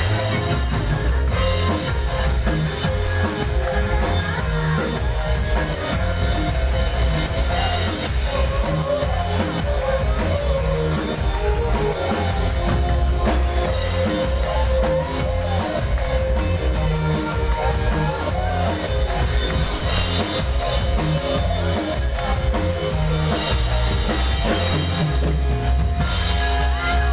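Live dangdut band playing loudly through a large outdoor sound system, with drum kit, bass and guitar under a wavering melody line, heard from within the crowd.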